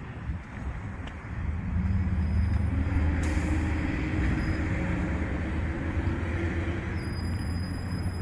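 Low, steady engine rumble of a passing heavy vehicle, swelling about two seconds in and then holding.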